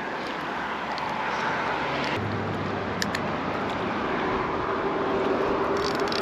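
Steady outdoor background noise, with a low droning hum like a distant motor coming in about two seconds in and a few faint clicks.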